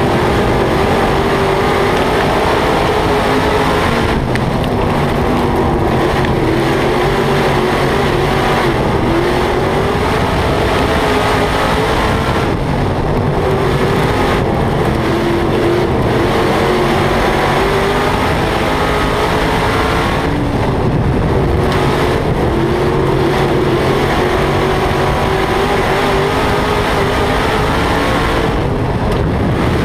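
Dirt modified race car's V8 engine heard from inside the cockpit, running hard at racing speed. It eases off briefly every eight seconds or so, then comes back on.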